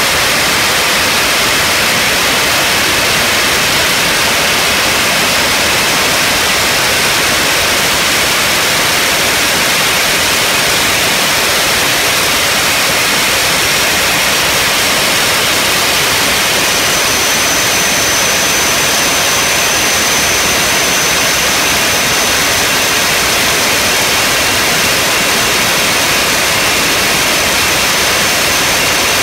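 Loud steady rushing, hissing noise from the overhauled ACE 600-1 running on its test bench as the test pressure builds toward about 40 psi, with a faint high whistle coming in about two-thirds of the way through.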